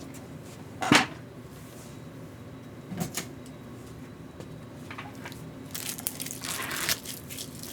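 Tools and parts handled on a workbench: a sharp clack about a second in, two smaller clicks about three seconds in, and a rustling scrape near the end, over a steady low hum.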